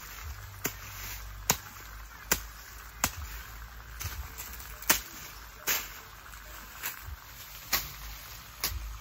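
Sharp chopping blows in a steady rhythm, about one a second, over a low steady rumble.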